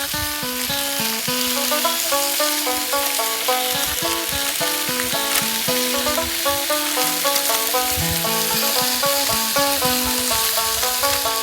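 Food frying in a pan, a steady sizzle, under plucked-string background music with a quick run of notes.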